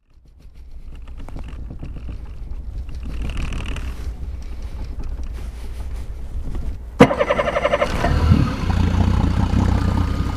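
A low steady rumble, then about seven seconds in a sharp click and a brief pulsing whine as a boat motor is cranked; it catches and runs with a steady low hum.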